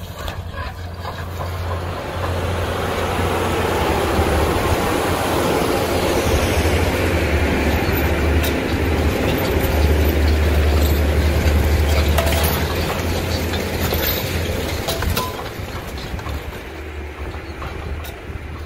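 Case IH Steiger articulated four-wheel-drive tractor's diesel engine working under load while pulling a 12-bottom moldboard plow, a steady low drone. It grows louder over the first few seconds and drops back after about fifteen seconds as the tractor passes.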